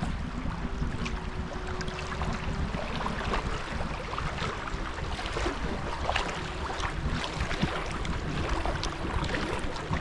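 Wind rumbling on the microphone over water splashing and lapping around a canoe, with scattered irregular splashes such as paddle strokes.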